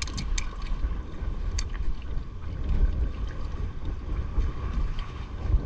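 Wind rumbling on the microphone over water lapping against a kayak hull, with a few light clicks of fishing gear being handled in the first two seconds.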